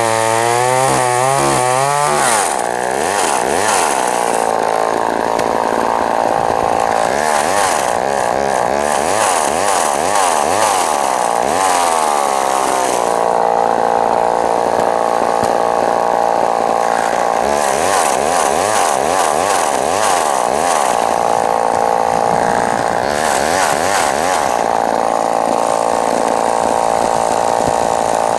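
1970s-era Homelite two-stroke chainsaw running at full throttle while cutting cherry logs. It revs up about two seconds in, then its engine note sags and recovers again and again as the chain loads up in the wood, with steadier high-revving stretches in between.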